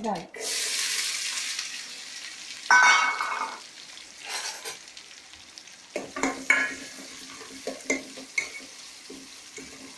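Sliced onions dropped into hot oil in a steel pot sizzle loudly at once, then settle to a steady frying sizzle, with a second loud burst about three seconds in. From about six seconds in, a metal spatula stirs and clinks against the steel pot.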